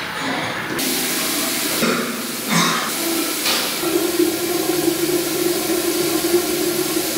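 Tap water running into a restroom sink, a steady hiss, with a steady low hum joining about four seconds in. It cuts off abruptly at the end.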